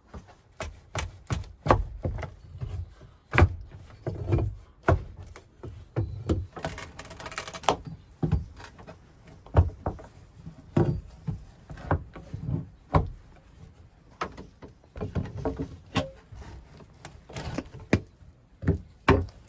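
Irregular series of knocks and dull thuds, roughly one every half second to second, with a short scraping noise about seven seconds in.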